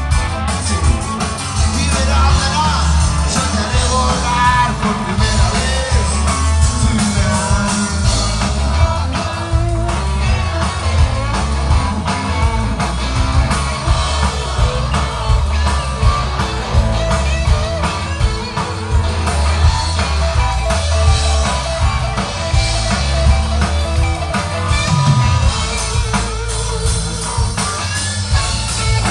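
Rock band playing live, loud: electric guitars, bass and drums, with a lead vocalist singing over them.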